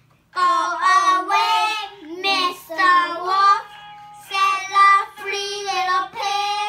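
A young child singing a children's song in a high voice, several sung phrases with held notes and short breaks between them.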